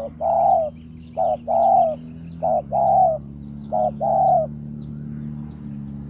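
Spotted dove cooing: four phrases about every 1.3 s, each a short note followed by a longer falling coo, stopping about halfway through. Faint high chirps of a small bird and a steady low hum continue underneath.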